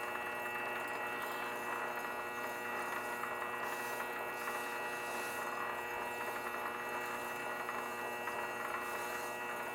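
Grizzly G0768 benchtop lathe running steadily at slow speed, around 60 RPM: an even motor hum with a high, steady whine on top.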